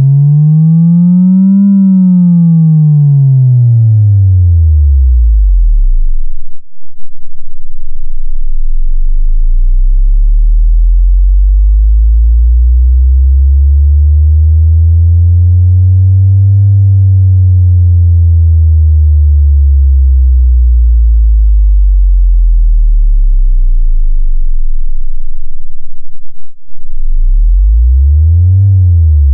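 Loud deep-bass sine-tone sweeps from a subwoofer bass test at its +3 dB stage. A tone glides up to about 200 Hz and back down over the first six seconds, then a slower rise and fall that peaks near 100 Hz lasts almost twenty seconds, and a short rise and fall comes near the end.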